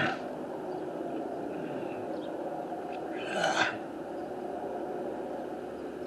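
Steady hum of construction machinery and trucks running, with a brief louder rush of noise about three and a half seconds in.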